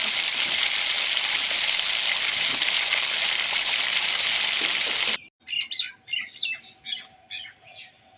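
Food sizzling as it fries in a pan, a steady hiss that cuts off abruptly about five seconds in. Then a bird gives a run of short, high chirps that grow fainter, over a faint steady tone.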